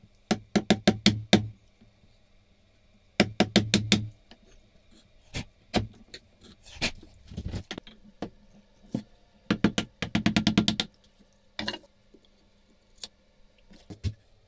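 Quick runs of light, sharp knocks as a chisel is tapped down into beech, chopping out the throat of a wooden rebate plane. There are three bursts of six to a dozen taps, the longest about two-thirds of the way through, with single knocks between.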